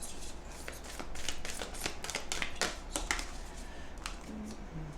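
A deck of oracle cards being shuffled and handled: a run of quick papery clicks and rustles that thins out after about three seconds.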